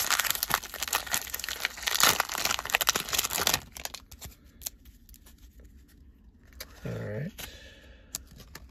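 Wrapper of a 1992 Stadium Club baseball card pack crinkling and tearing open for about three and a half seconds, then quieter faint rustles and clicks of the cards being handled.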